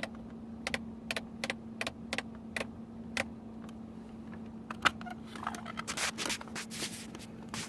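Small sharp clicks at irregular intervals, one louder click about five seconds in, then a stretch of rustling and scraping: hands working a car's climate control unit and its plastic parts. A steady low hum runs underneath.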